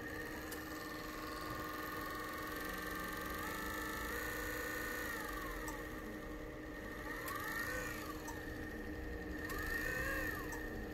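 Nidec UGTMEM-03MM134 DC servo motor running on test after repair. Its whine steps up in pitch a few seconds in and falls away, then twice rises and falls quickly as the speed is ramped up and back down.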